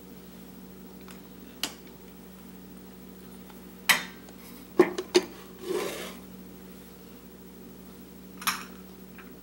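Small glass bowls clinking as they are picked up and stacked in a drawer: a single clink about a second and a half in, a quick cluster of clinks around four to five seconds, a brief glass-on-glass scrape just before six seconds, and one more clink near the end.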